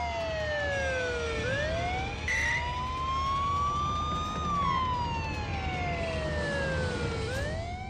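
Police siren wailing slowly up and down, taking about three seconds to climb and three to fall, over a low steady rumble.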